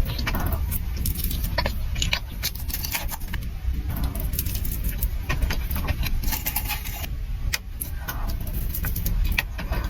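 Close-miked eating sounds: chewing with many short, irregular crackles and clicks over a steady low rumble.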